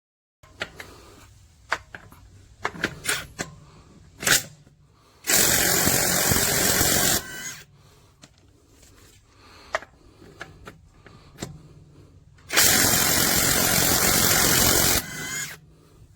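AOBEN cordless 1/2-inch brushless impact wrench run twice, about two seconds each time, with clicks and knocks of handling between the runs.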